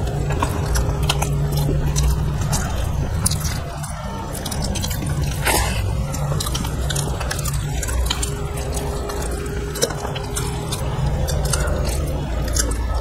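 Close-miked eating: two people chewing mouthfuls of rice and curry, with frequent wet clicks and lip smacks, over a steady low hum.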